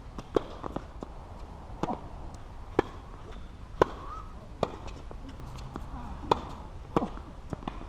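Tennis balls being hit by rackets and bouncing on the court in a rally: sharp knocks roughly once a second.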